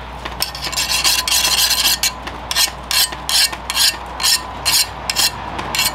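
Hand file scraping along the edge of a hardened leaf-spring steel knife blade in a file test for hardness. A longer stroke is followed by quick back-and-forth strokes, about three a second.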